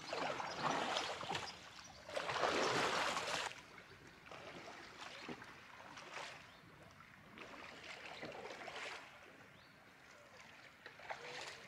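Kayak paddle strokes splashing in the river. Two louder strokes come in the first few seconds, then softer ones every second or two.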